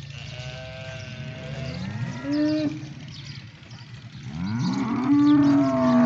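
Cattle mooing: two long calls, each rising in pitch and then holding, the second louder.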